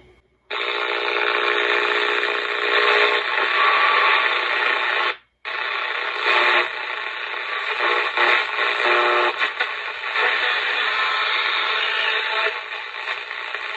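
Crown HT 460 transistor AM radio's small speaker hissing with static and faint whistling tones while the set is tried for stations, its open output capacitor bridged. The sound cuts out completely for a moment about five seconds in, then comes back.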